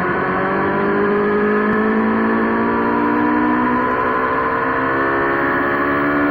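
Motorbike engine running under steady throttle, its pitch climbing slowly as the bike gathers speed.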